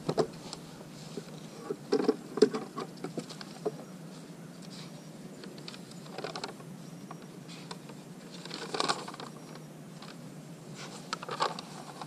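A hiker's footsteps on the trail: irregular clusters of short crunches and taps, the loudest about two seconds in and again near nine seconds.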